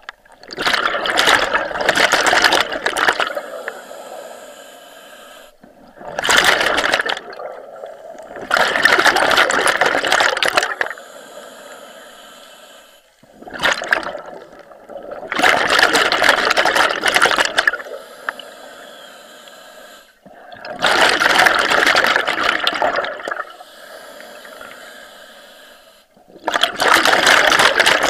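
Scuba regulator exhaust: a diver's exhaled breath bubbling out in bursts of about two seconds, every five to six seconds, with a softer hiss between breaths.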